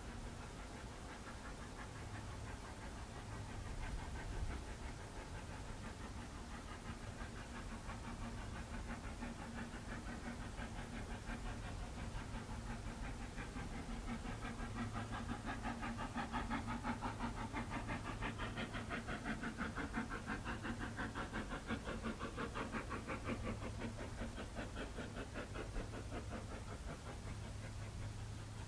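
Brienz Rothorn Bahn rack-railway steam locomotive's exhaust blasts, a fast, even chuff as it works hard up the steep grade. The beat grows louder toward the middle and eases slightly near the end.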